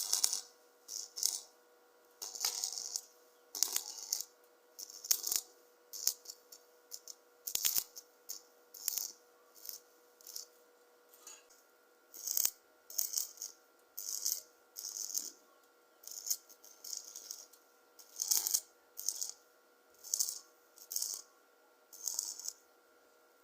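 Electric arc welding in short bursts, one after another roughly once a second, over a faint steady hum.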